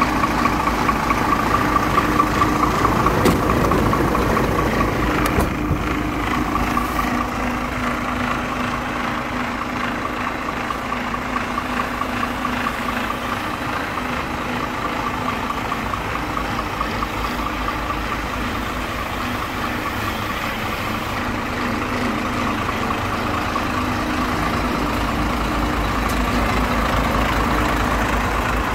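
Iveco Eurostar 440E43 straight-six diesel idling steadily, with a steady whine over the engine note.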